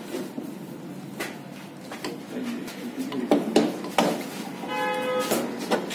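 Scattered metal clicks and knocks as a Hero Maestro scooter crankshaft is handled and seated into its bearing in the aluminium crankcase. About five seconds in comes a short pitched tone lasting about half a second.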